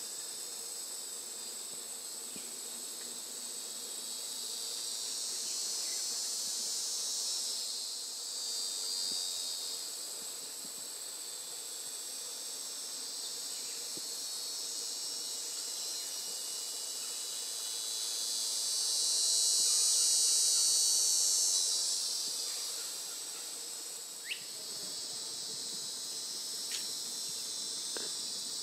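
Swamp insect chorus: a steady high-pitched drone that swells louder twice, most strongly about two-thirds of the way through. A few short sharp sounds come near the end.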